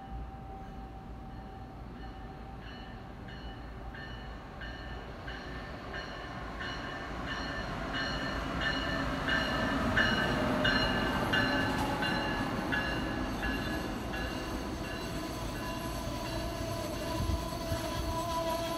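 Amtrak train hauled by a Siemens ACS-64 electric locomotive passing at speed: rumble and rushing noise build to their loudest as the locomotive goes by about halfway through, with a regular metallic ticking from the wheels that quickens as it nears and a tone that drops in pitch as it passes, then the coaches keep rolling by.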